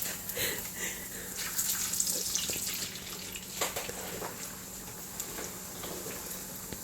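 Tortillas frying in hot oil: a steady sizzle with scattered small crackles and pops.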